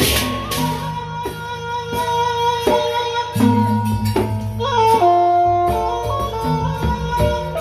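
Sasak gendang beleq gamelan music. A clash of cymbals fades out in the first half-second, giving way to a slow melody of held notes that step in pitch over a low, steady drone, with drum strokes landing about every 0.7 seconds.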